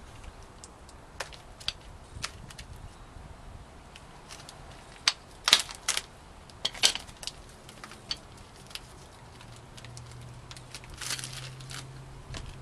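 Metal brake pads and their clips clicking and clinking as they are handled. The clicks come scattered and irregular, with the loudest in a cluster around the middle.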